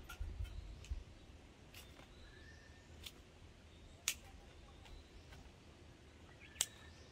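Household scissors snipping fresh hydrangea stems into cuttings: about five sharp snips spread out, the strongest about four seconds in and near the end.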